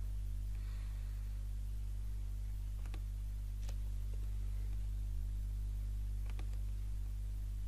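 Steady low electrical hum picked up by the recording microphone, with a few faint clicks of a computer mouse.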